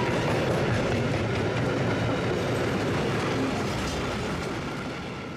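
A train running along the track, a steady rumble of wheel and rail noise that fades out near the end.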